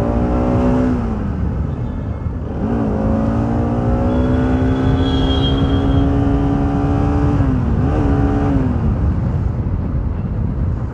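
A single-cylinder 200 cc motorcycle engine pulling hard under acceleration. Its pitch climbs slowly, drops about a second in and again near eight seconds as gears change, then climbs again. Steady wind rumble on the microphone runs under it.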